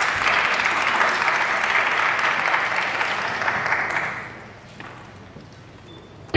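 Audience applauding in a hall as a competitor is announced and walks on stage. The clapping dies away about four seconds in, leaving quieter hall background.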